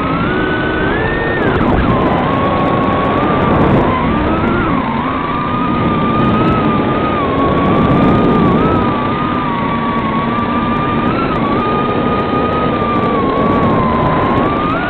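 Swallow 130 FPV quadcopter's brushless motors whining as it flies, the pitch following the throttle: it climbs sharply about a second in and falls back, then wobbles up and down. Heard through the onboard camera's microphone over the analog video link, thin and hissy with static crackles.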